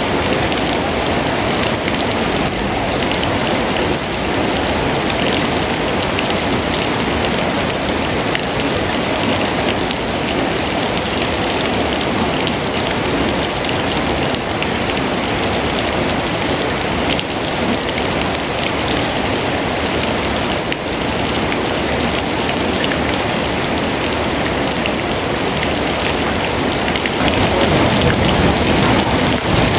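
Steady heavy rain falling, a dense even hiss that grows louder near the end.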